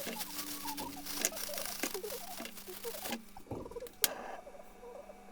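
Kitchen cooking sounds sped up fourfold: quick chirpy squeaks and scattered sharp clicks and clinks over a steady hum, with one loud click about four seconds in.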